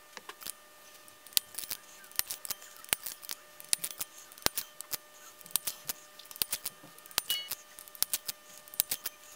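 Hand crimping tool clicking as Anderson Powerpole contacts are crimped onto short pieces of copper wire, with light metallic clinks of the small contacts being handled and set down. The clicks are sharp and irregular, several a second at times.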